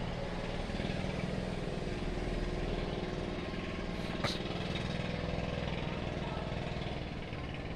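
Small pump boat engine running steadily as it tows a floating cottage, with a single short click about four seconds in.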